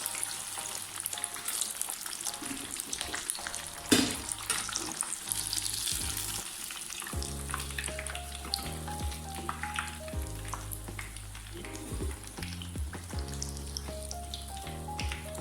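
Chicken strips deep-frying in hot oil, a steady sizzle, with one sharp knock about four seconds in. Background music comes in more strongly about halfway through.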